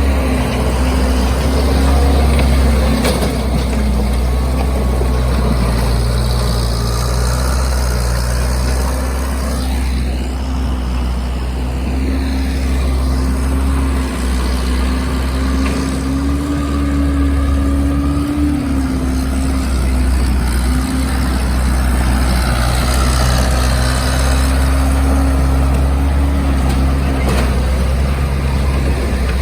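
Case compact track loader's diesel engine running steadily under working load, a constant low drone with a held tone that rises slightly a little past halfway and then settles back.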